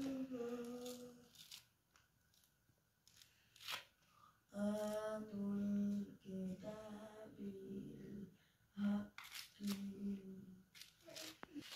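A voice quietly humming a tune in long held notes, with a few sharp crackles of orange peel being pulled off by hand.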